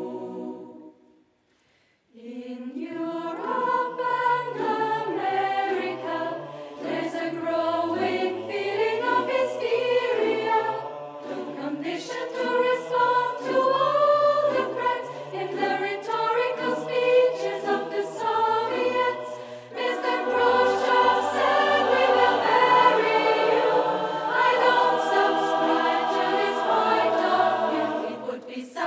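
Large mixed choir of women's and men's voices singing in harmony. A held chord breaks off just after the start, and after about a second of silence the choir comes back in and sings on, with a low bass line under the upper voices.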